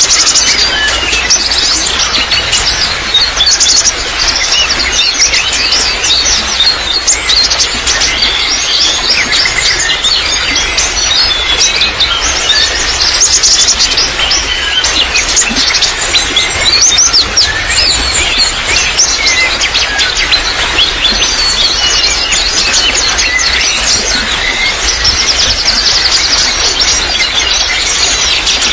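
Trickling water running steadily, with many small birds chirping and trilling over it without a break.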